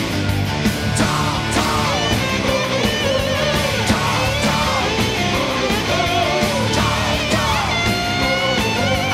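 Hard rock song playing: a full band with electric guitars and drums, at a steady loud level.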